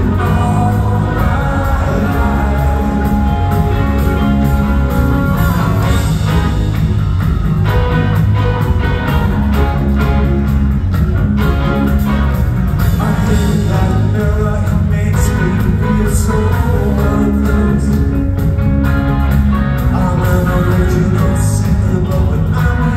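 A live rock band playing a song with electric guitars, bass guitar and drums, a man singing over them.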